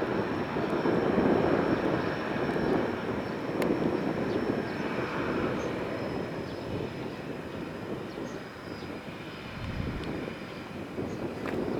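Pilatus PC-6 Turbo-Porter's PT6A turboprop engine running, its noise slowly growing fainter.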